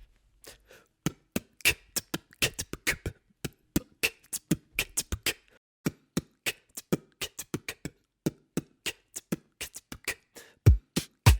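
Beatboxing: quick mouth-made clicks and snare-like hits in an uneven rhythm, with deep bass thumps coming in near the end.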